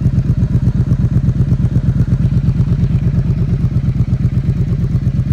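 Triumph Speed Twin 1200's parallel-twin engine idling steadily through a Zard full-system ceramic exhaust, an even, rapid low pulse.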